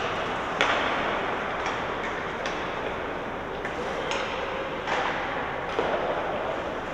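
Ice hockey play in a rink: sticks and puck clacking sharply about seven times, irregularly, over a steady background of rink noise.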